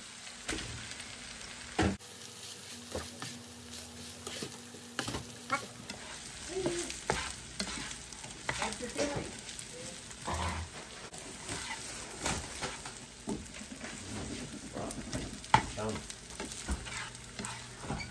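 Stir-frying rice with diced turkey sausage and onion in a nonstick skillet: hot fat sizzling under the spatula's irregular scrapes and knocks on the pan as the rice is tipped in and tossed. The sharpest knock comes late on.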